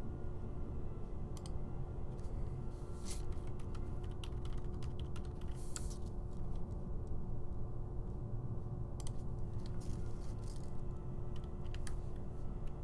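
Computer keyboard typing in short bursts, with a few mouse clicks, over a steady low hum.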